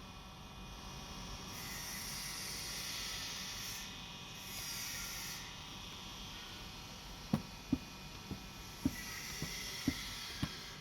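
Steady hiss of air that swells and fades, joined in the last few seconds by a series of light knocks about every half second.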